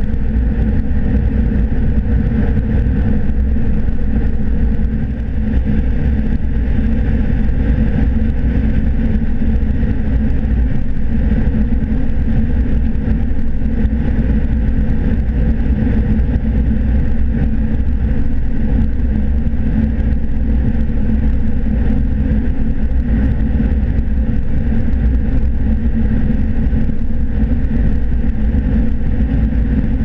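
John Deere S680 combine running steadily while harvesting corn, heard from inside the cab: a constant low drone of the engine and threshing machinery.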